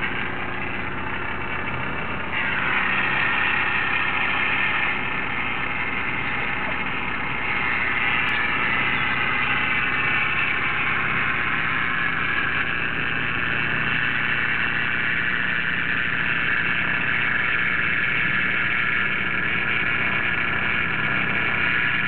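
An engine idling steadily, a little louder from about two seconds in.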